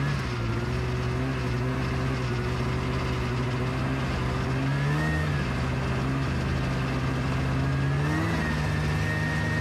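Snowmobile engine running at speed, revving up briefly about halfway through and again near the end, then holding a higher pitch.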